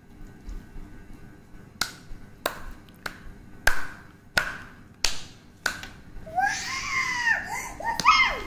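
A run of sharp, evenly spaced snapping clicks, about one every 0.6 seconds, then a child's high wordless voice for the last two seconds or so.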